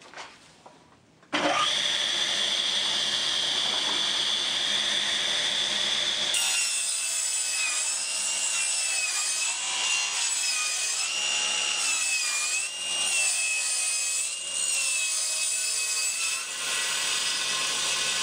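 Table saw starting up, its blade whining steadily, then ripping a redwood board lengthwise from about six seconds in. Under the load of the cut the whine drops in pitch and wavers. The cut straightens the warped edge of a chainsaw-milled plank.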